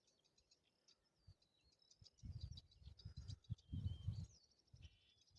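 Faint starling song, a varied run of whistles, warbles, glides and clicks. Low rumbling noise comes in about two to four seconds in.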